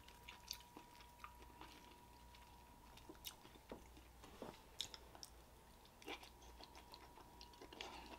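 Close-miked eating sounds: a person chewing and biting king crab meat, with scattered soft wet clicks and smacks. A faint steady high tone hums underneath.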